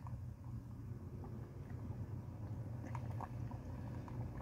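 A person quietly sipping through a straw, with a few faint soft mouth clicks, over a steady low hum.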